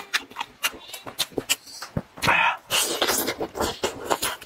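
Close-miked wet chewing, smacking and sticky mouth clicks as a person eats saucy roast poultry, with a louder wet slurp a little after two seconds in.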